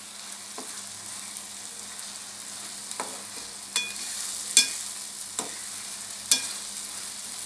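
Thick tomato gojju sizzling as it fries in a non-stick pan while a spatula stirs it. A steady hiss runs underneath about six sharp clacks of the spatula scraping and knocking against the pan, the loudest about halfway through and another near the end.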